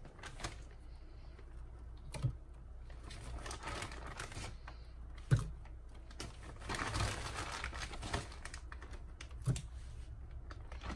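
Scattered knocks and clicks, the sharpest about five seconds in, with handling rustle between them, as pieces of frozen banana are dropped one by one into a plastic blender cup of milk.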